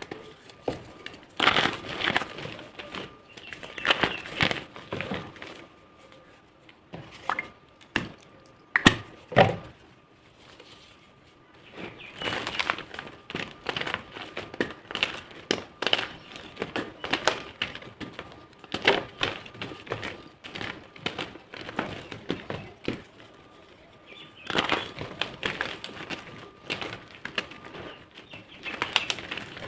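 Blocks of gym chalk being crushed and crumbled into powder: bursts of gritty crunching and crackling, with a few sharp snaps about a quarter of the way in.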